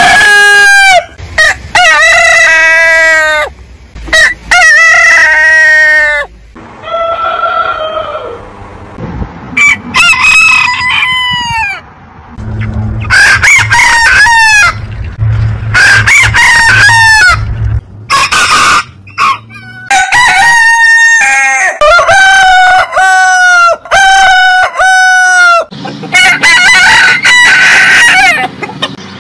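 Roosters crowing one after another, about a dozen long crows from several different birds, differing in pitch and length.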